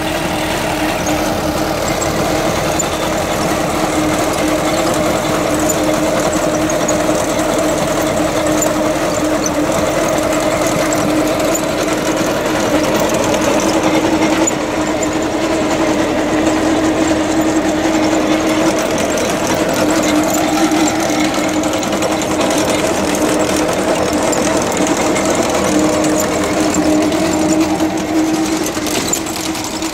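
Sonalika 750 tractor's diesel engine running steadily under load, driving a chain trencher that digs a pipeline trench through the soil, with a fast continuous rattle from the digging machinery.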